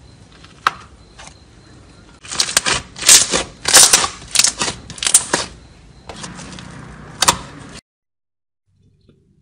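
Clear red slime squeezed and poked by hand, making a quick run of sharp sticky clicks and pops, loudest from about two to five and a half seconds in. The sound cuts off abruptly near the end.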